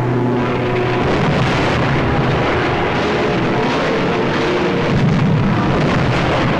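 Bombardment sound effects: a dense, steady rumble of explosions with crackling running through it, no single blast standing out.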